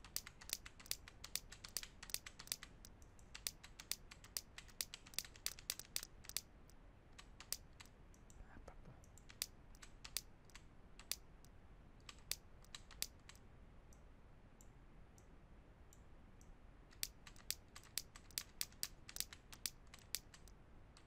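Faint clicking of a computer mouse and keyboard: quick runs of clicks in the first few seconds and again near the end, with scattered single clicks in between.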